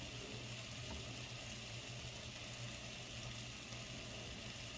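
Chicken breasts frying in a pan with a faint, steady sizzle, over a low steady hum.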